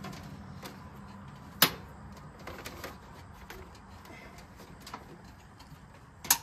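Scattered clicks and light knocks of hands working wiring and connectors inside a metal trailer toolbox, the two sharpest about a second and a half in and near the end.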